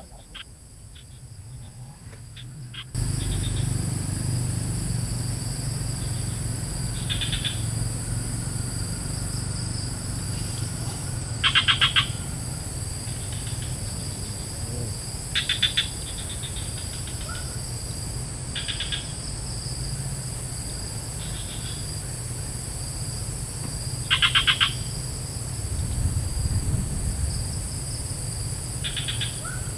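Swamp ambience: a steady high-pitched insect drone, with a short rapid trilled call repeating every few seconds, over a low steady rumble. The drone and rumble start abruptly about three seconds in.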